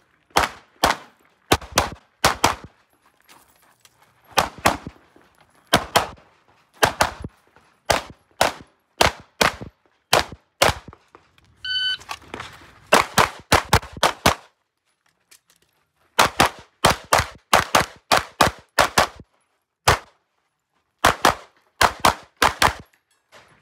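9mm Glock 17 Gen 5 pistol fired rapidly, mostly in quick pairs of shots, during a practical shooting stage. About twelve seconds in a shot timer gives its short start beep, followed by more fast strings of shots.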